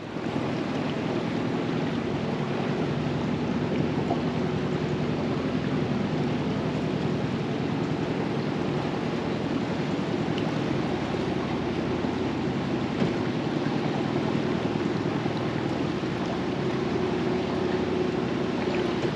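Steady rush of river water with wind on the microphone, over a constant low hum.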